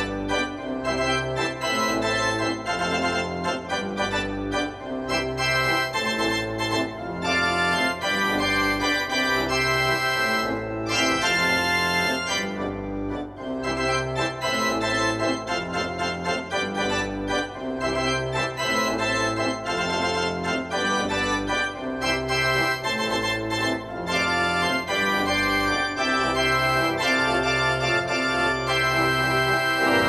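Organ music played as a hockey goal celebration: a busy, continuous tune over a bass line that changes notes about once a second.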